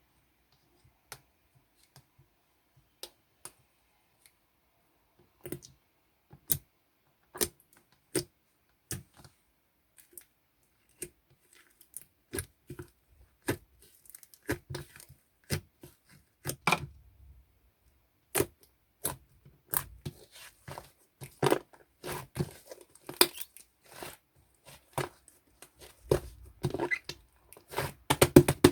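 Slime being handled and mixed: sticky clicks and small air pops, sparse at first and coming faster and denser in the second half.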